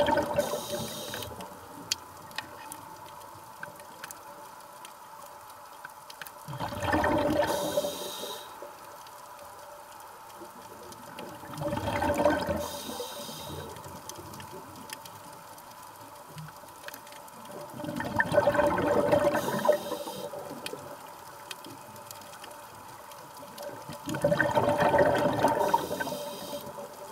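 Scuba regulator exhalation: a diver's breath bursting out as a gush of bubbles for about two seconds, five times at a steady rhythm of roughly one breath every six seconds, heard underwater.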